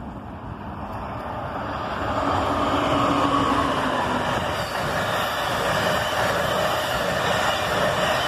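Amtrak passenger train of stainless-steel Amfleet coaches passing through the station at speed. The wheels on the rails make a steady rushing noise that builds over the first two seconds and then holds loud, with a faint whine that drops in pitch as the head end goes by.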